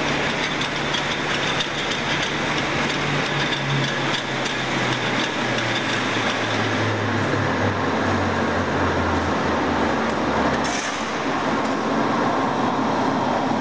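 Roller pan mixer running with its electric drive motor, its heavy rollers grinding wet material in the pan: a loud, steady mechanical din. Under it a low hum slowly drops in pitch and stops about eleven seconds in.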